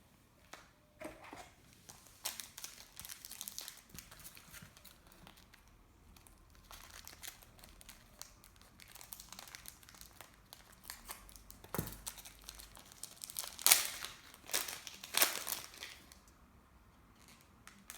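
Trading card pack wrapper crinkling and tearing as it is opened and handled, in scattered rustles with a few louder crackles near the end.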